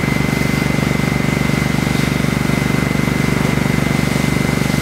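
A large engine running steadily at constant speed with a fast, even low pulse, and a thin steady high whine above it.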